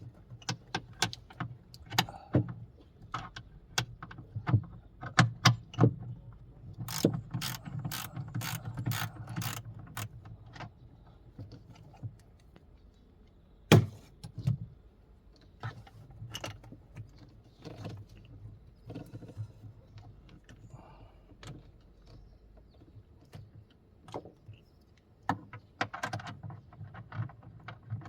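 Hand tools working on metal parts: irregular clicks and knocks with quieter handling noise between, a quick run of sharp clicks a little under halfway through, and one loud knock near the middle.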